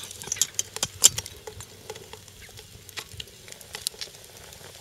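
Wood cooking fire crackling in irregular sharp ticks and pops under an enamelware pot.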